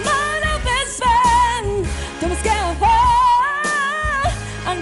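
Young female singer belting held, wavering notes and quick runs into a handheld microphone, over pop-soul backing music with a steady bass. One long note is held near the end.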